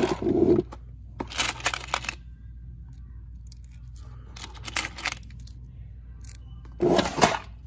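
Black alloy-steel socket head cap screws clinking and rattling in a metal parts drawer as a hand digs through them and picks some out, in about four short bursts over a low steady hum.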